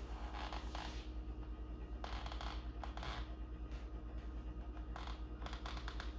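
A steady low hum runs underneath. Over it come soft scratchy rustles and a few light clicks from handling, in short spells about a second apart.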